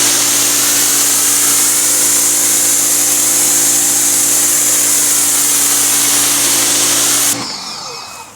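Greenworks 1700 psi electric pressure washer running and spraying: a steady motor-and-pump hum under a loud hiss of the water jet. It cuts off sharply about seven seconds in, leaving a short fading hiss.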